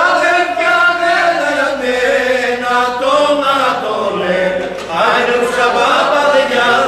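Group of men singing a Greek folk song together, in long, drawn-out held notes; a short breath break about five seconds in, then a new phrase starts.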